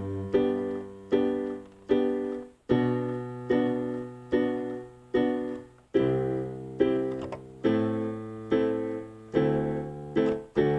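Electronic keyboard with a piano sound playing sustained chords, one struck about every 0.8 seconds, each ringing and fading before the next, with no singing.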